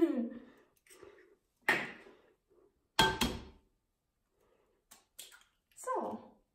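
Eggs being tapped and cracked open over a glass mixing bowl: a sharp tap about two seconds in, then two quick taps about three seconds in.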